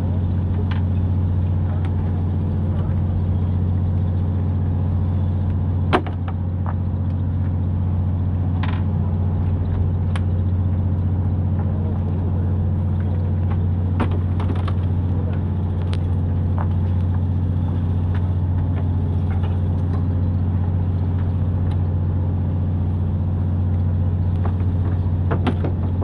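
Steady low drone of a fishing boat's engine running, with a few faint clicks and knocks from tackle on deck and one sharper knock about six seconds in.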